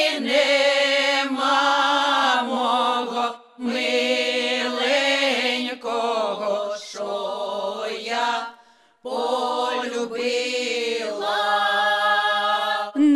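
Women's folk ensemble singing a slow Cossack lyrical song a cappella, holding long, drawn-out notes. Two short breath pauses come about 3.5 and 9 seconds in.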